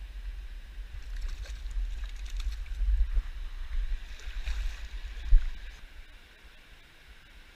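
Steady rush of a mountain trout stream under a low rumble of wind buffeting the microphone. The rumble and water noise grow rougher through the middle, with a sharp knock about five seconds in before it settles.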